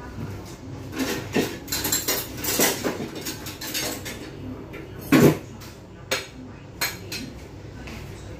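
Dishes and cutlery clattering as they are handled at a kitchen counter: a run of knocks and clinks, with the loudest clank about five seconds in.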